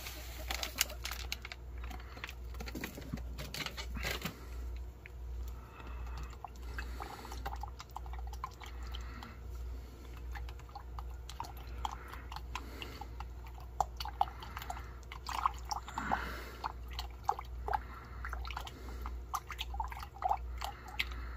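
Instant coffee powder being stirred into cold water in a glass measuring cup: liquid swishing, with irregular clicks and taps of the utensil against the glass.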